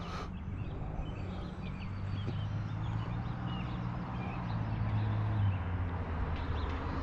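Small birds chirping in short, repeated, rising-and-falling calls over a steady low mechanical hum.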